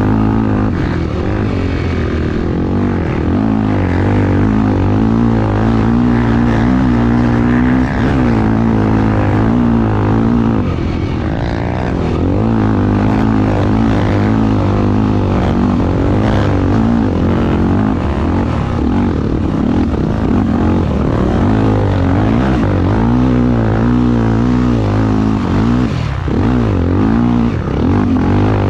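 Racing vehicle engine running hard at sustained high revs, its pitch wavering slightly up and down, over a steady rushing noise.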